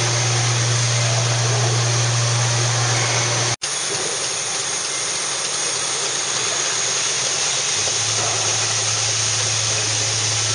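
Steady factory machinery noise, an even rushing sound with a low hum under it, cut off for an instant about three and a half seconds in.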